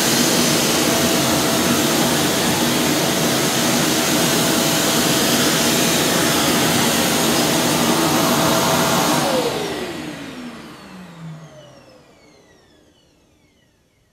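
Kärcher WD 5.400 wet-and-dry vacuum cleaner running steadily, then switched off about nine seconds in, its motor whine falling in pitch as it spins down and fades out.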